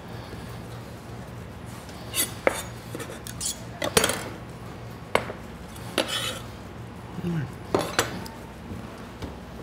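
Kitchen knife knocking and scraping on a wooden cutting board as sliced green onion is gathered up, about seven irregular knocks over a steady low hum.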